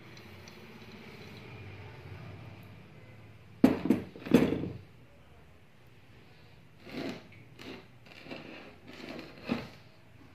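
Metal ceiling fan rotor housing set down on a hard workbench with a few sharp clanks about three and a half seconds in. Softer short rustles and clicks follow as the wire leads of the rewound stator are handled.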